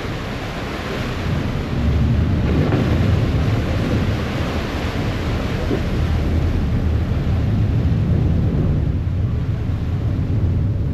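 Rumble and rush from the stern of a moving harbour ferry: the engine and propeller churning up the wake, with wind buffeting the microphone. The low rumble swells about two seconds in and stays heavy.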